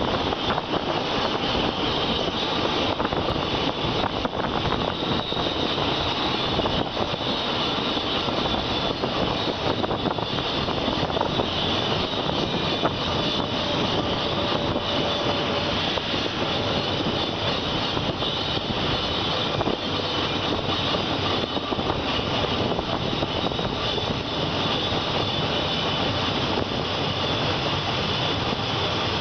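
Steady rush of wind and rolling wheel noise from a moving passenger train, heard at an open carriage window, with no breaks.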